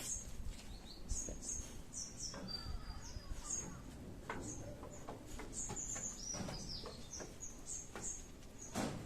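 Small birds chirping: many short, high, slightly falling notes repeating throughout, with scattered clicks and a sharper knock near the end.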